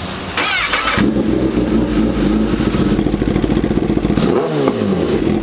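Kawasaki ZX-10R inline-four with an aftermarket slip-on exhaust being started: a brief whine of the starter motor, then the engine catches about a second in and settles into a steady idle. About four and a half seconds in, one quick throttle blip briefly swings the engine's pitch.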